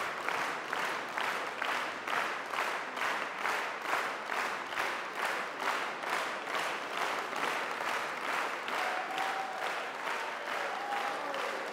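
Concert-hall audience applauding in a steady rhythm, about two claps a second, as the soloist comes on. A few faint held notes come in near the end.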